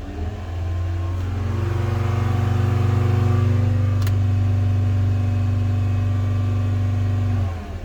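VW Bora 2.5 five-cylinder engine revved up and held at a steady raised speed for about seven seconds, then let back down toward idle near the end. It runs evenly, with no misfires after new ignition coils were fitted. A single click about four seconds in.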